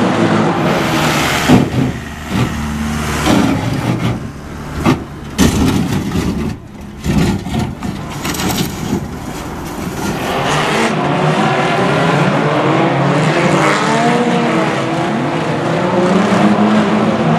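Banger racing cars' engines running and revving, with several sharp bangs of cars hitting each other in the first half, then many engines rising and falling in pitch together as the pack goes round.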